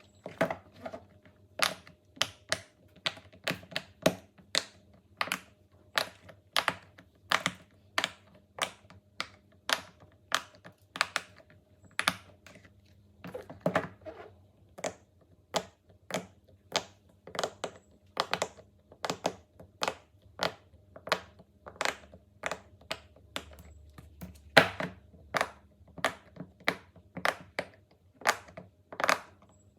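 Silicone pop-it fidget toy being pressed bubble by bubble: a steady series of short, sharp pops, about two a second.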